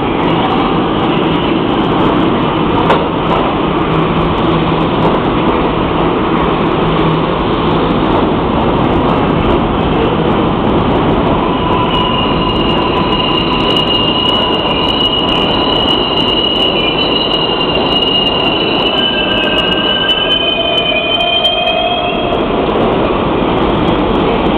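New York City subway R142A train pulling into an underground station: a loud, steady rumble of wheels on rails throughout. About halfway through, high-pitched squealing sets in as it brakes, several squeal tones sliding downward near the end as the train slows.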